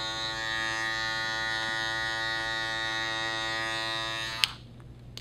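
Electric hair clipper with a guard attachment running with a steady hum. It is switched off with a click about four and a half seconds in.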